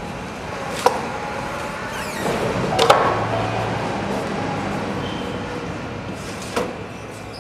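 Sharp metal knocks, three of them, the loudest about three seconds in, as a crane's C-hook coil lifter is worked in the eye of a steel coil, over steady machinery noise with a low hum coming in partway through.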